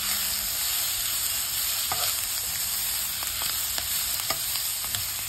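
Shimeji mushroom, onion and green chili stir-fry sizzling steadily in a non-stick wok while a spatula stirs it, with scattered light clicks of the spatula against the pan. It is near the end of cooking, the mushrooms' water already cooked off so they fry in the oil.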